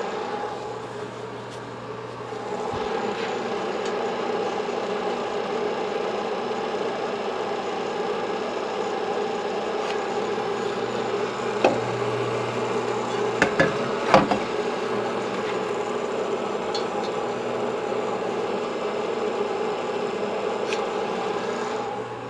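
Sunnen honing machine running steadily, its stones rubbing inside the bore of a two-stroke motorcycle cylinder worked on the mandrel by hand. The sound picks up about two seconds in, with a few sharp knocks near the middle.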